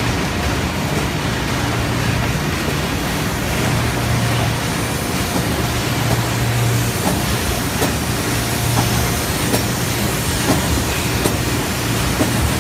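Imanpack Moonlight PBB horizontal flow-wrapping machine running, conveying and film-wrapping foam clamshell containers: a steady mechanical running noise with a low hum that swells and fades, and scattered clicks.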